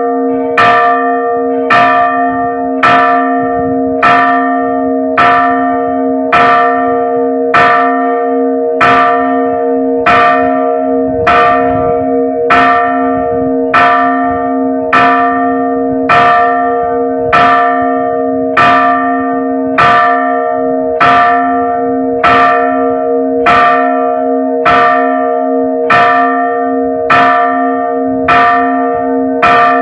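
A single church bell struck by its clapper, pulled by a hand rope, in a steady even rhythm of about one stroke a second. Each stroke rings on with a sustained hum that carries into the next.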